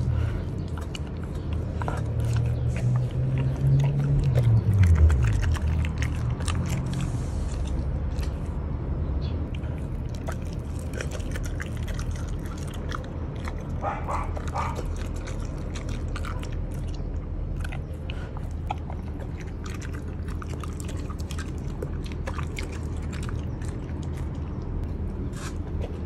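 Siberian husky chewing and crunching whole raw anchovies, a long run of quick wet bites and crunches, over a low steady hum.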